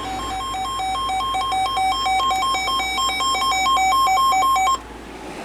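Electronic emergency alert tone from a broadcast EAS alert: two buzzy pitches alternating rapidly in an uneven pattern, cutting off abruptly near the end.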